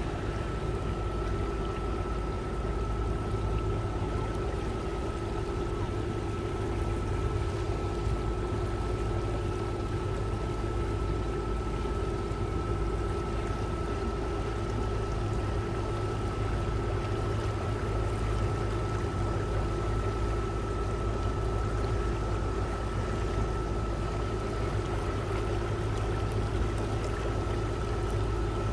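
A river boat's engine running steadily under way, a low drone with a thin steady whine above it, along with water rushing past the hull.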